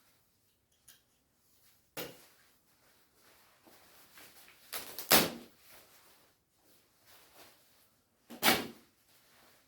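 Shiny nylon shell of a down jacket being torn by hand: three short rough rips, about 2 s in, about 5 s in (the loudest) and near the end.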